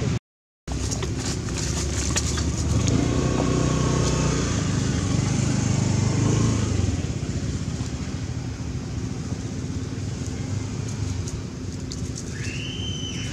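A motor vehicle, likely a motorbike, passing close by: its low engine rumble swells over a few seconds and then fades. The sound cuts out briefly just after the start, and near the end there is a short high-pitched call.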